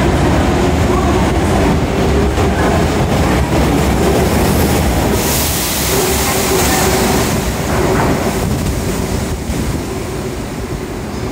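Osaka Metro 30000 series subway train pulling out of an underground station, its running noise and a steady hum filling the platform, with a high hiss for a couple of seconds midway. The noise fades near the end as the train goes into the tunnel.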